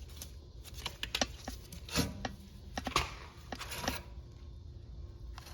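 Rear brake caliper being lifted off and handled: a scattered series of light metal clicks and knocks, the loudest about two and three seconds in.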